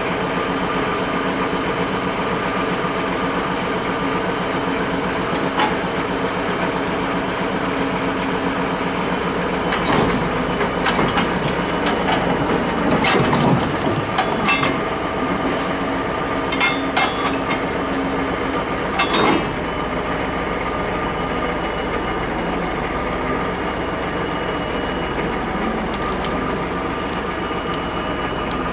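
A steady mechanical hum, with a run of creaks, cracks and knocks between about ten and twenty seconds in, as a steam road roller is unloaded off a low-loader trailer.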